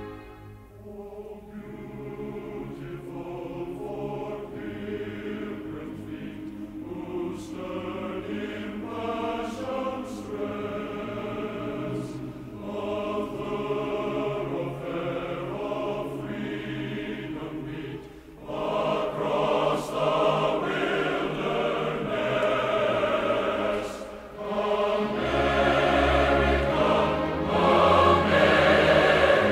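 Background music: a choir singing sustained, swelling notes over an orchestral accompaniment, growing louder about two-thirds of the way through.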